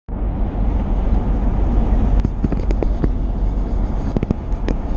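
Road and engine noise of a moving vehicle: a steady low rumble with scattered light clicks.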